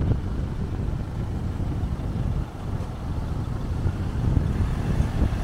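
Dual-cab 4WD ute's engine running as it drives slowly down a soft sand track, a steady low rumble mixed with wind buffeting the microphone.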